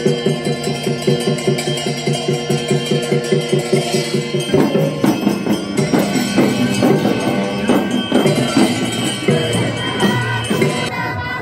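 A steady, evenly beating music track for about the first four and a half seconds, then live Tamang festival music: damphu frame drums struck in an uneven rhythm with voices over them.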